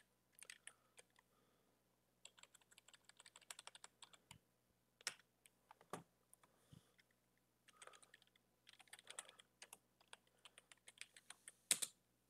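Faint typing on a computer keyboard: several short runs of keystrokes with brief pauses between them, and one louder key strike near the end.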